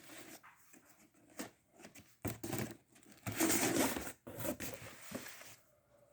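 A cardboard box being opened and its contents handled: irregular rustling and scraping with a few knocks. The loudest rustle comes a little past the middle.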